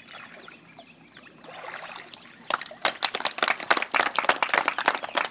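Pool water sloshing and splashing as a boy is dunked under and lifted back up. About two and a half seconds in, a small group starts clapping by hand, and the clapping is the loudest part.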